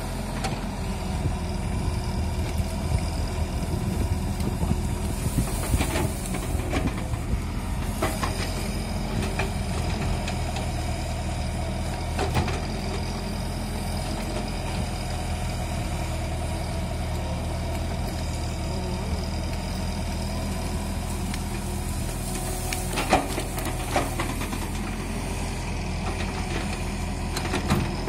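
Diesel engine of a JCB tracked excavator running steadily while it digs, with a few sharp knocks scattered through.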